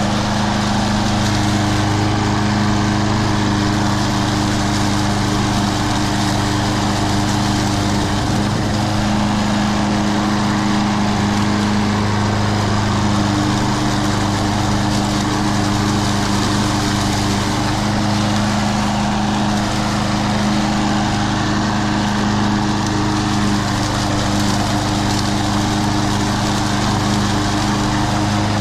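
Troy-Bilt TB230 walk-behind lawn mower's single-cylinder Briggs & Stratton engine running steadily at a constant speed.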